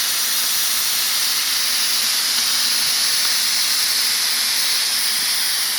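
Steady hiss of an oxy-fuel cutting torch flame burning through thick steel plate as a Linde Cut-Line rail-mounted track torch cuts a 45-degree bevel.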